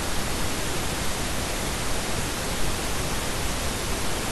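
Steady, even hiss with no other sound, at an unchanging level.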